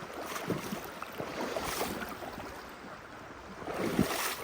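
Creek water rushing, with irregular splashes and knocks as someone wades through the current, swelling louder briefly near the end.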